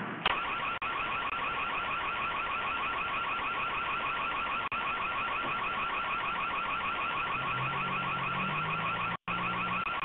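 Electronic alarm siren sounding continuously, a fast, rapidly repeating warbling tone, heard through a security camera's narrow-band microphone. It cuts out for a split second near the end.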